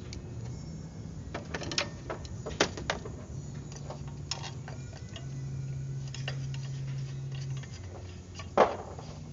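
Scattered metal clicks and clinks of hand tools and fittings being worked on a truck's turbocharger during removal, the sharpest knock near the end, over a low steady hum.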